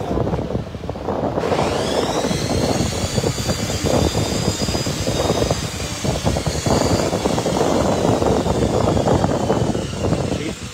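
Clear plastic wrapping on a portable power station crinkling and rustling as it is handled. A high whine rises about a second and a half in and then slowly sinks.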